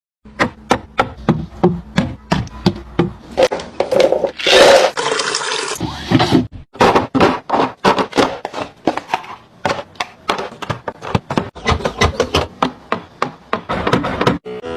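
A quick, steady run of hard knocks and clacks, about three a second, as objects are handled and set down, with a brief rustling hiss about four to six seconds in.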